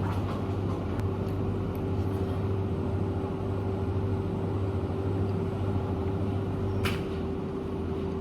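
Steady low mechanical hum with a constant tone, and a single short click about seven seconds in.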